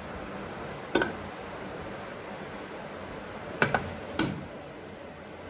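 Sharp clicks and knocks as a hanging lamp's square ceiling plate is pressed and fitted into place against the false ceiling: one about a second in, then three in quick succession a little past halfway, over a steady background hiss.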